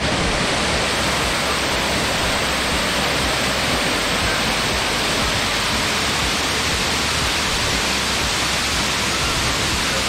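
Waterfall heard close up: water falling with force down a rock face, a steady, dense rush that does not let up.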